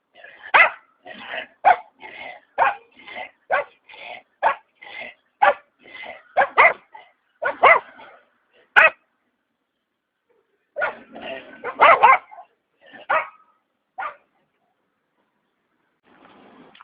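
A dog barking over and over, about two barks a second. The barking pauses for a couple of seconds, then a few more barks follow, with a faint rustling noise near the end.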